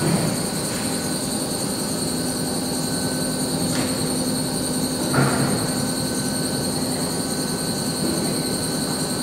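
Electric hoist of an overhead gantry crane running with a steady whine and hum while it lowers a small steam locomotive. A few metal clanks come from the hanging locomotive and its lifting gear, the loudest about five seconds in.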